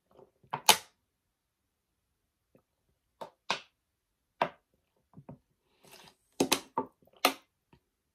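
Thin plastic water bottle crackling as it is gripped and dented while someone drinks from it: a string of sharp crackles and clicks, one loud one about a second in and a quick cluster of several near the end.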